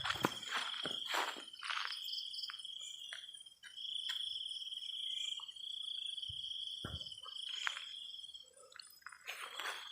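Cricket trilling steadily at a high pitch, breaking off briefly a few seconds in and stopping near the end. A few sharp clicks and knocks sound in the first two seconds, and one more knock comes later.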